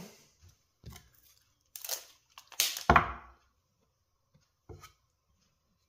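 Hands working a taped mitre joint on a wooden shelf panel: a few brief tearing, rasping sounds of tape pulling as the edge is folded into place, and a wooden knock about three seconds in, the loudest, with a light click near the end.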